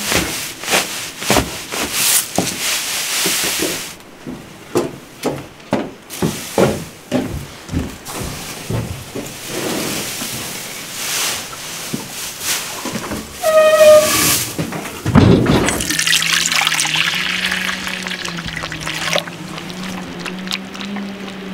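Pitchfork strokes through dry hay, rustling and scraping in quick repeated strokes through the first several seconds. Later, liquid pours and splashes steadily.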